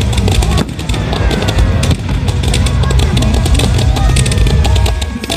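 Fireworks launching and crackling in rapid succession at close range, a steady stream of sharp pops and bangs over music played from the show's loudspeakers.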